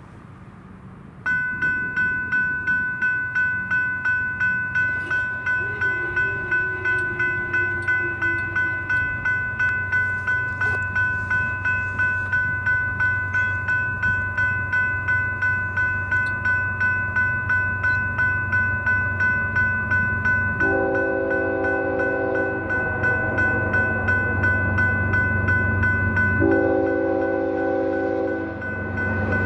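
Railroad crossing bell starts ringing about a second in and keeps a steady ding, about two strikes a second, as the crossing activates. A BNSF freight locomotive's rumble builds underneath, and about two-thirds of the way through its horn starts sounding long blasts for the crossing.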